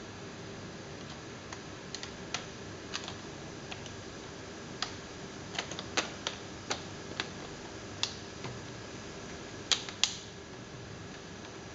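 Plastic trim panel above a Dell XPS M1730 laptop's keyboard being pressed into place by hand: about a dozen sharp, irregular plastic clicks as its clips snap in, the two loudest close together near the end.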